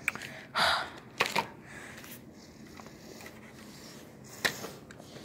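Handling noises: a brief rustle about half a second in, then a few sharp clicks and light taps, about a second in and again near the end, over low room noise.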